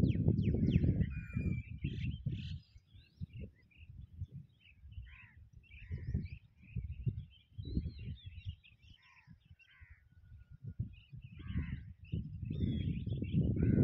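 Several birds chirping and calling in short, overlapping calls and whistles. Under them runs a gusty low rumble of wind on the microphone, loudest in the first two seconds and again near the end.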